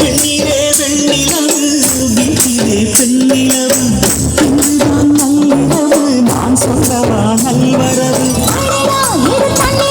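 Tamil film song played through a Klipsch R-28F tower speaker: an instrumental passage with jangling tambourine-like percussion under a wavering melody line, without singing.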